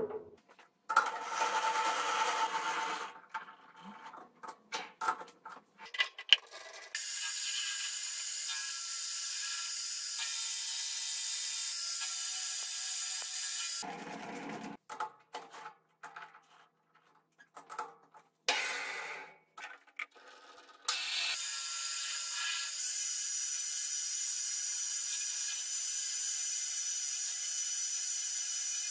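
Metal lathe turning a short steel bar held in a three-jaw chuck. Clinks and knocks of the bar being handled and clamped alternate with two long stretches of the lathe running, a steady sound with a high whine, while steel chips come off the bar.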